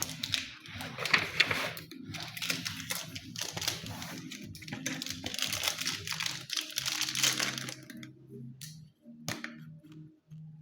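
Crinkling and clicking of plastic ink bottles and packaging being handled, for about eight seconds, then quieter with a few sharp clicks.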